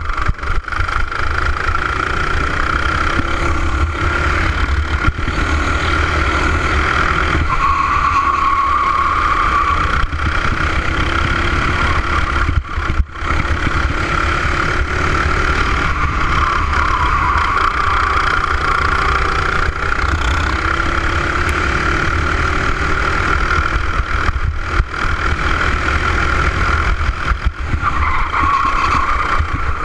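Racing kart engine at high revs, heard from on board the kart, with a steady high pitch that dips briefly three times as it slows for corners: about a quarter of the way in, a little past the middle, and near the end.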